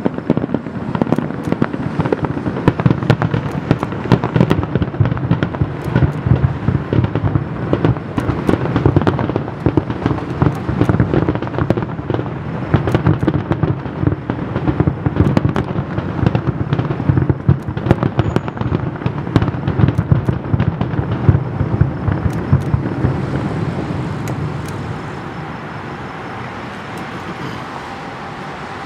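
Fireworks finale barrage: a dense, rapid run of shell bursts, cracks and booms that thins out and stops about 25 seconds in, leaving a steady background noise.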